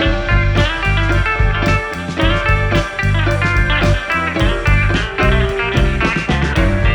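Background music, a guitar-led instrumental with a steady rhythmic beat.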